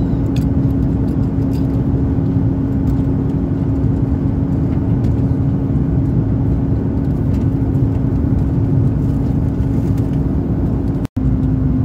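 Airbus A330-300 cabin noise in flight: a steady, dense rush with a constant low hum running through it, cut off for an instant near the end.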